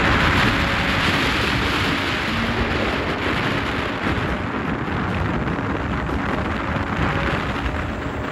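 Steady wind rushing over the microphone, with road noise and a vehicle engine running low underneath, while travelling along a paved road.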